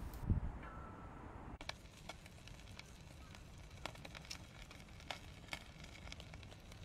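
Faint crackling of a small wood fire under a wire grill, with scattered sharp pops.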